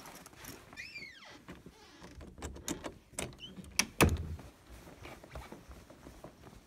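Handling noises: rustling and sharp clicks and knocks, a short squeak falling in pitch about a second in, and a single heavy thump about four seconds in, the loudest sound.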